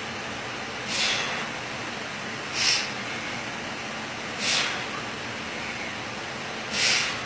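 Four sharp, hissing exhalations from a lifter straining through cable biceps curls, one with each rep, about every two seconds, over a steady background hiss.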